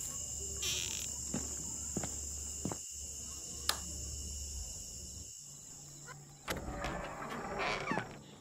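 A steady, high-pitched insect drone, like crickets, continues throughout. Over it come light clicks and, near the end, a brief rustle as fingers press cut grass onto the small metal model wagon.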